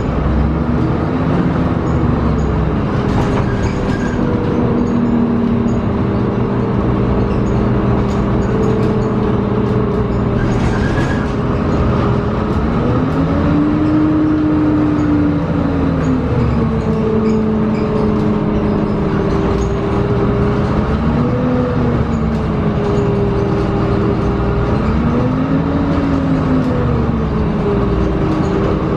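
The Cummins ISB 5.9L diesel and Allison EP40 hybrid drivetrain of a 2006 Gillig hybrid bus running, heard from inside the cabin. It is a steady hum with whining tones that rise and fall in pitch three times in the second half.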